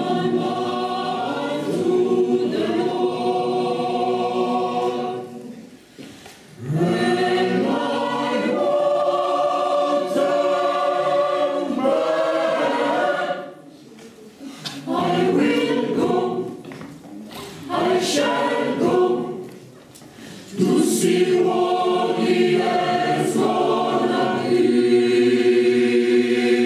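Mixed gospel choir singing full held chords in several long phrases separated by short breaks.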